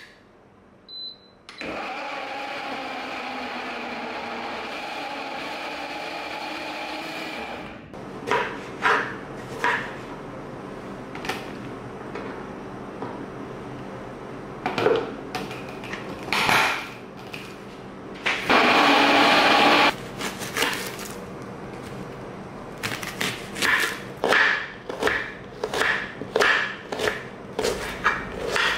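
Kitchen food preparation: an electric blender runs steadily for about six seconds, then a string of knocks and clatter with a second loud, short blender burst about two-thirds of the way in, and a quick run of knocks near the end.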